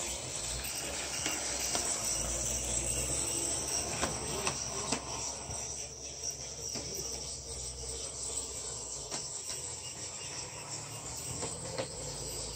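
An HO scale model streetcar running on its track: a steady high-pitched whine from the small electric motor, with scattered light clicks from the wheels on the rails.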